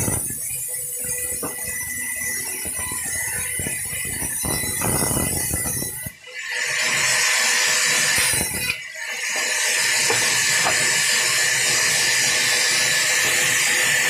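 Sawmill saw running and cutting teak planks fed along its table, a steady loud hiss of blade through wood. The sound drops out briefly twice, about six and nine seconds in, then carries on even louder and hissier.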